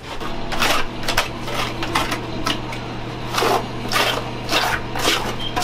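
A scrub brush scratching against the inside of a grimy bathtub in repeated strokes, roughly two a second, over a steady low hum.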